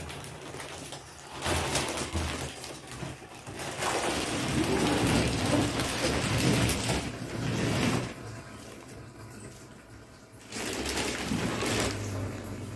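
Clear plastic wrapping being pulled off a mattress, crinkling and rustling in long bursts, with a quieter stretch a little past halfway.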